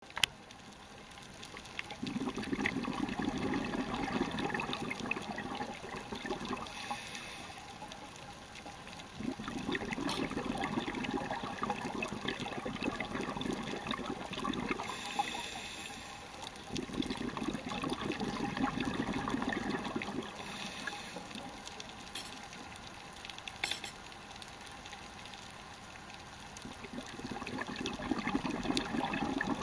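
Scuba diver breathing underwater through a regulator: bursts of exhaled bubbles rumbling past the microphone in four swells, each lasting a few seconds and coming about every eight seconds, with short inhale hisses between them.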